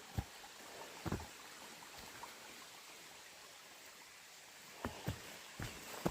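Footsteps of a hiker on a rocky, rooty trail: a few scattered soft knocks, several of them close together near the end, over a faint steady hiss.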